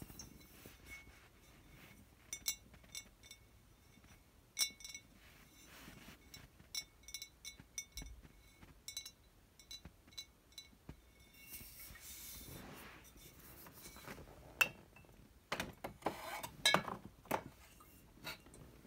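Glass wine bottles being tapped, a run of light, irregular clinks that each ring at a clear pitch. About twelve seconds in comes a soft scraping rustle, then louder glass clanks near the end as bottles knock against each other.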